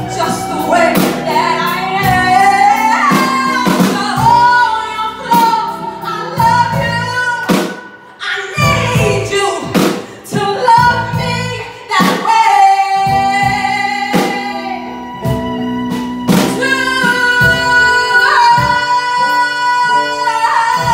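A woman sings a musical-theatre ballad live with a small band of piano and drums behind her, ending on a long held high note.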